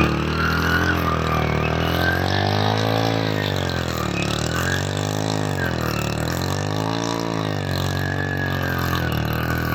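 An engine-like drone whose pitch rises and falls in slow, even sweeps about every two seconds.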